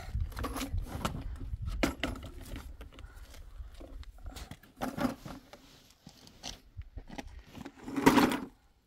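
Irregular knocks and clatter, with one louder, longer noisy burst near the end.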